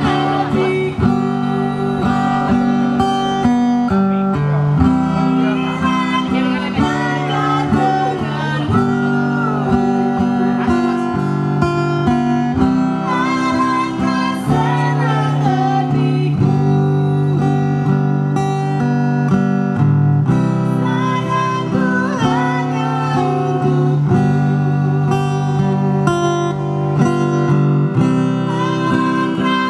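Live acoustic performance: acoustic guitar strumming with a singer, amplified through a PA sound system.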